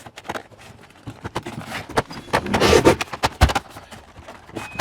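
Vinyl siding panel rattling and scraping as it is worked into place and snapped into the lock below, with a run of clicks and knocks and a heavier thump about three and a half seconds in.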